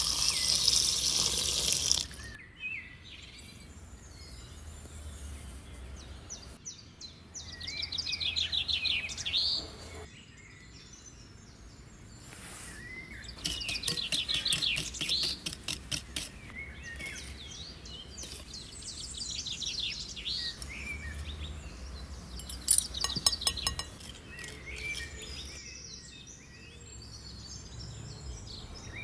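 Songbirds singing in repeated rapid trilled phrases, with quieter gaps between. A loud hiss fills the first two seconds, and a few sharp clicks come about two thirds of the way through.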